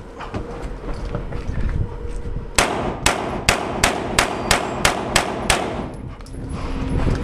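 A rifle fired about ten times in a quick, even string of single shots, roughly three a second, starting about two and a half seconds in. Before the shots there is quieter movement and rustling.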